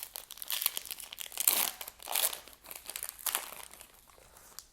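Wrapper of a Panini Chronicles Draft Picks trading-card pack being torn open and crinkled by hand, in several rustling surges.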